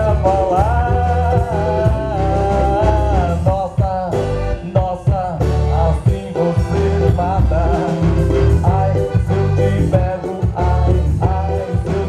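A song with a singing voice over a steady bass and beat.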